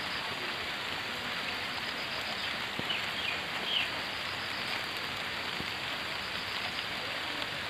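Steady rain falling, a continuous even hiss, with a few faint short bird chirps about three seconds in.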